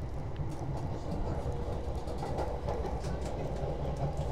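Yamanote Line electric commuter train heard from inside a carriage, running along the track with a steady low rumble of wheels on rails.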